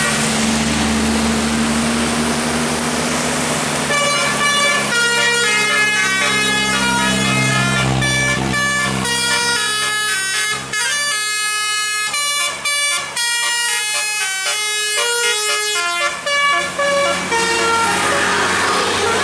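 A bus's Basuri telolet air horn playing a tune of clear, stepping notes, starting about four seconds in and stopping shortly before the end. Under it the bus's engine runs, with a hiss of road noise before the horn starts.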